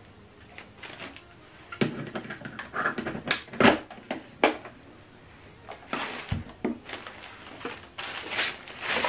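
Handling noise: cables and plastic packaging bags rustling and clattering on a table, with irregular knocks. The sharpest knock comes about three and a half seconds in, and a low thump follows at about six seconds.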